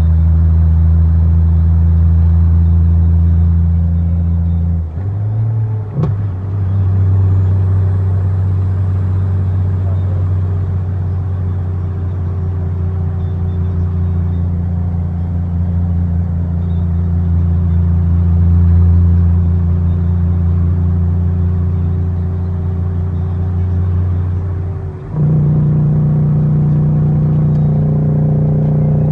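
Freightliner FLD120 Classic's diesel engine heard from inside the cab while the truck drives, a loud steady low drone. The engine note dips briefly and changes pitch twice, about five seconds in and again near the end.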